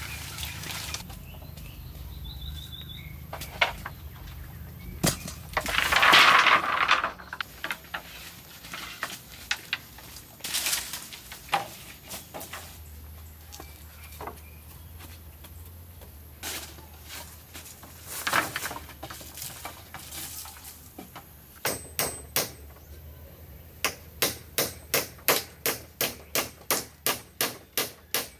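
Hand tool work on a build: scattered single knocks and a louder scrape about six seconds in, then near the end a fast, even run of sharp strikes, about three a second.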